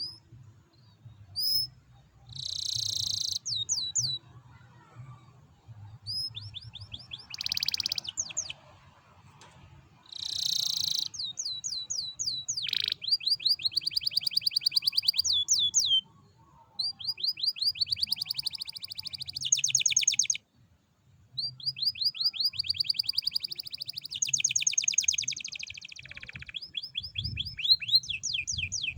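Canary singing in long, rapid trills and rolls: fast runs of repeated high notes, each sweeping downward, broken by brief pauses, with a few short buzzy bursts among them.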